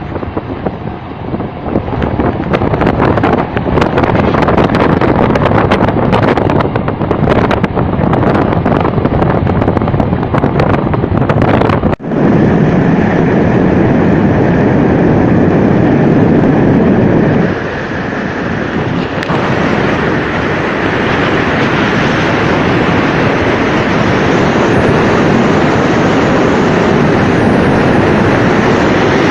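A vehicle under way, its running and road noise steady and loud, with wind buffeting the microphone; rattling clicks in the first part, then an abrupt break about twelve seconds in.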